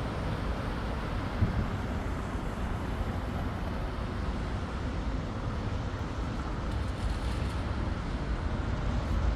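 Steady road traffic noise from cars on a wide city street, an even rumble with no single event standing out.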